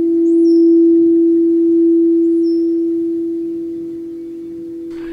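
Singing bowl ringing with one steady, pure tone that slowly fades, a second, higher tone joining about halfway through.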